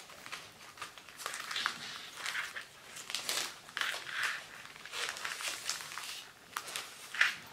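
Clear cellophane wrapping crinkling in irregular rustles as hands smooth and press it flat around a card.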